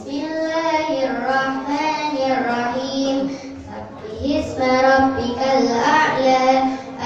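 A child's voice reciting the Qur'an in the melodic qiroah style. It sings two long, ornamented phrases with a short break about four seconds in.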